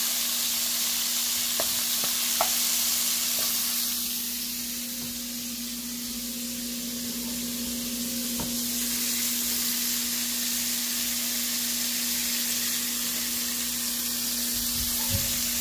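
Sliced mushrooms sizzling as they fry in oil in a nonstick pan, a steady hiss with a steady low hum underneath. A few light taps in the first few seconds.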